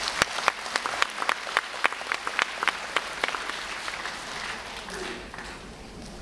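Audience applauding, a run of distinct handclaps that thins out and fades about four seconds in.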